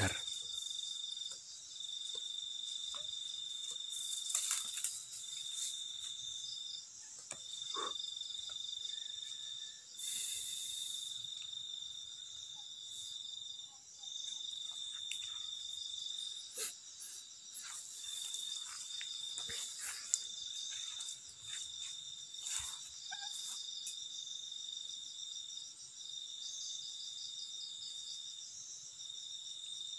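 Crickets and other night insects trilling steadily, one high trill coming in repeated pulses a second or two long, with a few short clicks and rustles scattered through.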